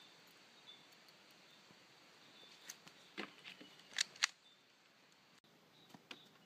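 A handful of sharp clicks and clacks from an airsoft M1911 pistol being handled, the two loudest close together about four seconds in, over a faint steady hiss.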